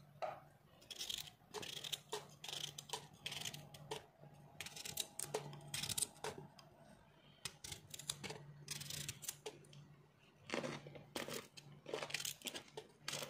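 Fresh cucumber being cut into slices over a glass blender jar, the slices dropping in among the herbs: a run of short, irregular crisp cuts and soft knocks, over a faint steady low hum.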